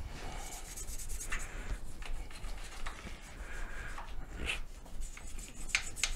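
Hand scrubbing of a mobility scooter's body during cleaning: irregular rubbing strokes with a few light clicks.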